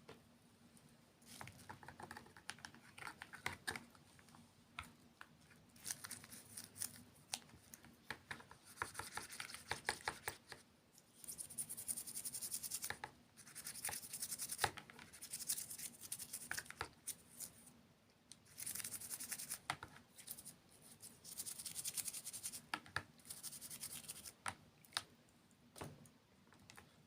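Close-miked crinkling and scratching in repeated bursts of a second or two, full of small sharp clicks, with short pauses between them.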